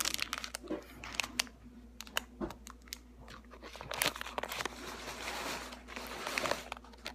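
Clear plastic bag of toy rings crinkling as it is handled, in irregular crackles and clicks that grow denser about four seconds in.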